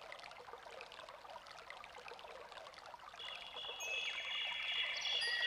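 A steady crackling hiss like trickling water, with nothing below the mid range. About three seconds in, high sustained tones come in and grow louder as the song's instrumental intro begins.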